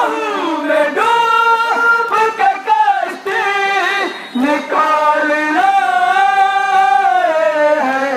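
A man's voice singing a nauha, a Shia lament for Hussain, in long held notes that glide and waver between phrases.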